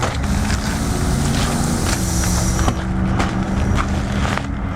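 An engine running steadily, its pitch dropping slightly about two seconds in, with a few sharp clicks over it.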